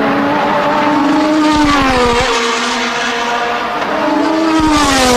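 Formula One race car engine at racing speed. Its pitch climbs under acceleration and drops twice, with a rapid low rattle as the revs fall.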